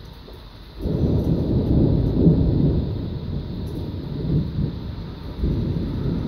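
Loud rolling thunder: a low rumble breaks in suddenly about a second in and rolls on, swelling again near the end.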